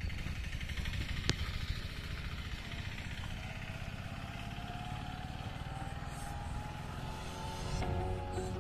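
A small motor vehicle's engine running past, its pitch rising slowly, over a steady low rumble. Music comes in near the end.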